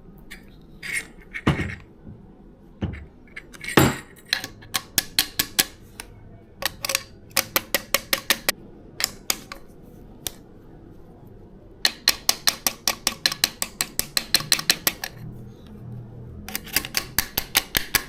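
Metal tool work on bicycle fork parts: a few louder knocks, then runs of sharp, quick metallic clicks or taps at about six a second, stopping and starting several times.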